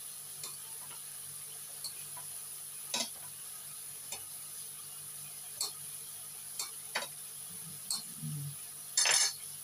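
Nam prik ong, a minced pork and tomato chili paste, sizzling in a nonstick frying pan: a steady high hiss with scattered pops and a louder crackle near the end.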